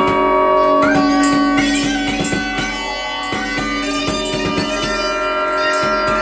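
Modular synthesizer music: sustained drone notes held over a stream of short percussive ticks, with the held pitches changing a few times.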